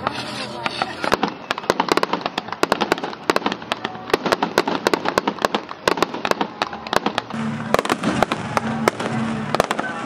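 Fireworks going off in rapid succession: a dense run of sharp bangs and crackles, thickest in the first seven seconds or so, with music playing underneath that comes through more clearly near the end.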